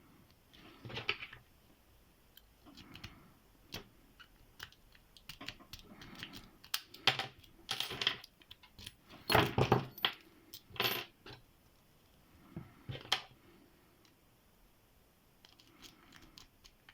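Rake pick being worked in the keyway of a Qualtec pin-tumbler padlock: irregular bursts of metallic scraping and sharp clicks, with the loudest cluster about nine to eleven seconds in.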